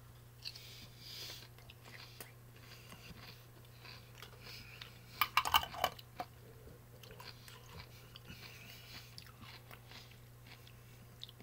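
A crunchy pickled gherkin being bitten and chewed close to the microphone: soft, wet chewing with a louder run of crunches about five seconds in.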